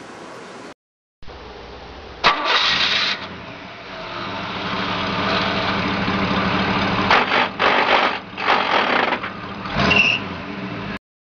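A machine motor starting up, then running steadily, with several loud bursts of noise over it.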